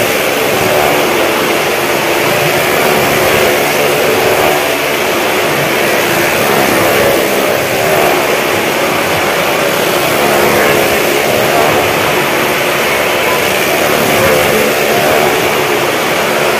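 Several motorcycle engines running hard together as the bikes circle the vertical wall of a wooden well-of-death drum. A loud, dense, steady drone whose pitch keeps wavering up and down as the riders work the throttles.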